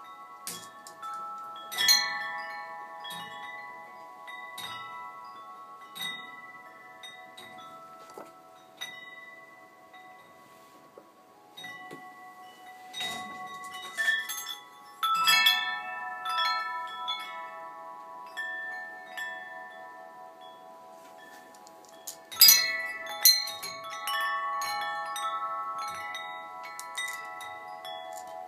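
Hanging metal tube wind chimes ringing, with tubes struck at irregular moments and their long tones overlapping. Clusters of strikes come about two seconds in, around the middle, and the loudest about three-quarters of the way through.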